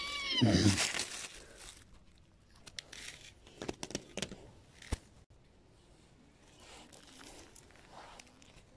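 A horse whinny sound, falling in pitch and ending in a low rumble, about half a second in. It is followed by rustling of leaves and plants and a few light taps as a toy horse is moved through the undergrowth and over the ground.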